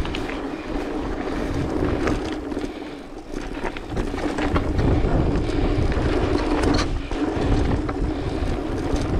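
Wind buffeting the microphone over the rumble of mountain-bike tyres rolling on a dirt trail, with scattered clicks and rattles from the bike over bumps. It gets louder about halfway through.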